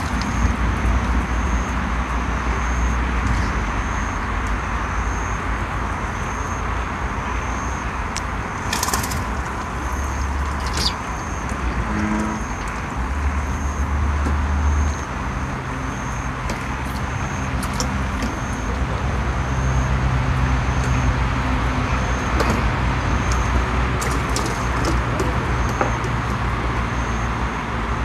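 Night outdoor ambience by a pond: a steady hiss with a low rumble that swells and fades. A faint high chirp repeats about once a second, and there are a few soft clicks.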